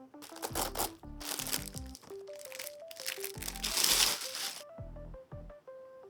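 Packaging being handled and crinkling in several bursts, loudest about four seconds in, over background music with steady notes and a low beat.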